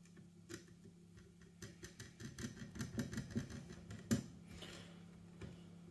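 Hand screwdriver driving a small screw into an airsoft AK's body: a run of faint, quick clicks and ticks, several a second, with a sharper knock about four seconds in.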